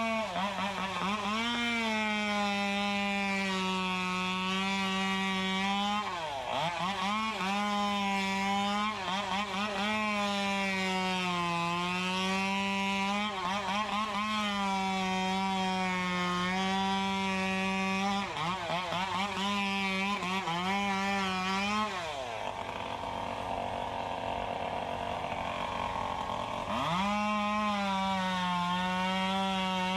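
Two-stroke chainsaw running at high revs while cutting palm fronds, its pitch repeatedly sagging and recovering under load. About two-thirds of the way through it drops off the throttle for several seconds, then revs up again.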